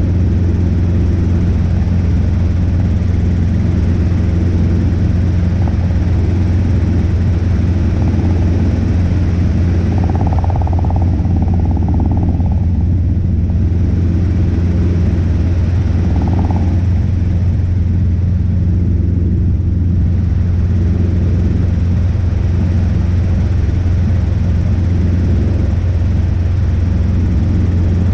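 Robinson R22 helicopter in cruise flight: its piston engine and rotor make a loud, steady, deep drone.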